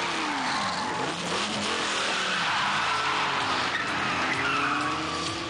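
Car engine revving up and down while its tyres squeal and skid in hard, fast driving.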